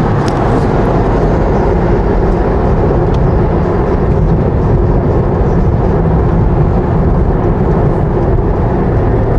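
Steady road and engine noise inside the cabin of a moving car, a loud, even rumble.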